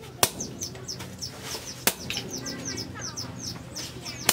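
Sledgehammer blows ringing sharply on a handled chisel held against red-hot steel on an anvil, three strikes roughly every one and a half to two seconds. Between them, small birds chirp rapidly and steadily.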